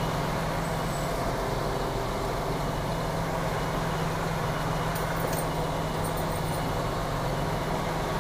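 Lorry's diesel engine running steadily at low revs, heard from inside the cab as the truck creeps forward at walking pace.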